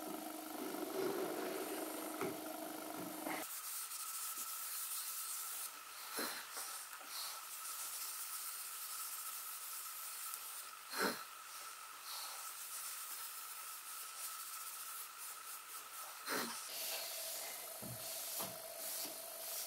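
Soft steady hiss of a cloth rubbing wax polish into a wooden corner joint, with a few light knocks in between.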